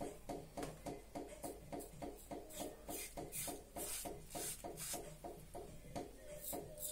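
Mühle Rocca V4 safety razor with a Bluebird double-edge blade cutting stubble through soap lather on the cheek: a scratchy scrape with each short stroke, about four strokes a second.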